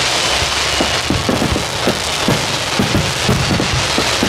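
Niagara fireworks curtain hissing and crackling without a break, with many irregular booms of aerial shells bursting overhead, several a second.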